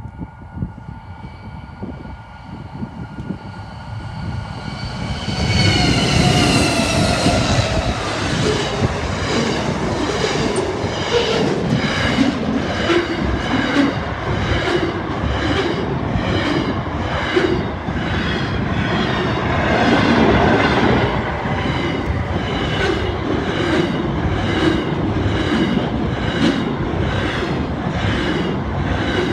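Freight train led by two NR-class diesel locomotives approaching and passing close by. A steady whining tone drops in pitch as they go by about six seconds in. Then double-stacked container wagons roll past with a loud, rhythmic wheel clatter a little faster than once a second.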